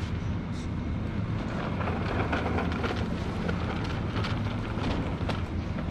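Steady low hum and rumble of supermarket background noise, with a plastic shopping cart rolling over a tiled floor and a few faint clicks and rattles.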